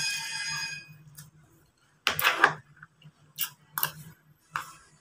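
Eating sounds: a spoon clicking and scraping on a plate, a few short sharp sounds with the loudest about two seconds in. A ringing, chime-like sound fades out in the first second.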